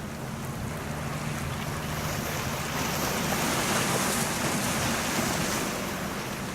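Wind on the microphone and waves washing, swelling to a peak about midway and easing off, over a steady low hum.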